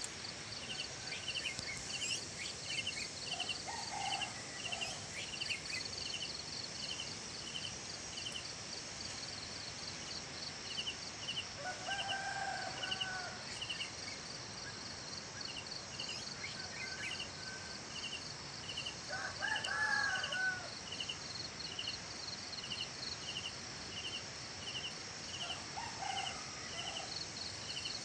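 Roosters crowing four times, the loudest near the middle, over steady, rhythmic insect chirping.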